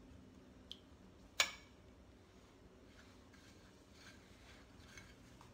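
Faint handling sounds of a tuna cutlet being dipped in beaten egg and pressed into breadcrumbs by hand, with one sharp click about a second and a half in and a few soft ticks later.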